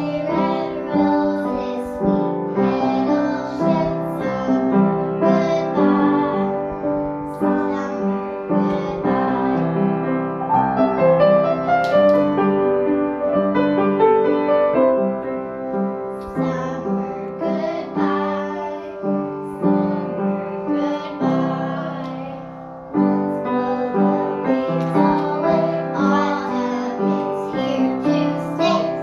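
Young children singing a song to piano accompaniment, with a short break about three quarters of the way through before the piano and voices come back in.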